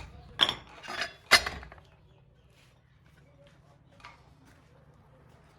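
Metal tools or engine parts clinking against each other: a few sharp clinks in the first second and a half, then quiet apart from a faint tick about four seconds in.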